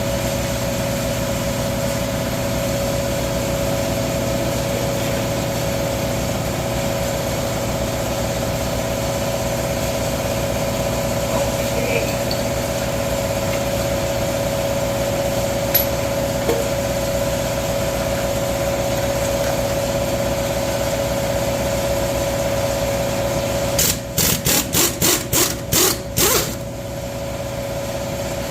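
Power cutting tool, such as a cut-off grinder, running with a steady whine as it buzzes parts off the engine. Near the end it is pulsed on and off about seven times in quick succession, then stops.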